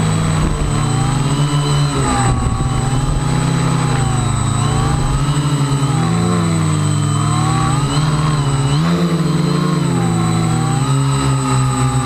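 Electric motors and propellers of a small radio-controlled quadcopter whining, the pitch swinging up and down again and again as the motors speed up and slow down.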